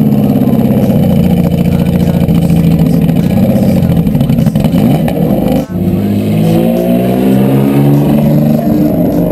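Aston Martin DBR1's straight-six racing engine running loud as the car pulls away. Its sound drops out briefly past halfway, then climbs in pitch as it accelerates.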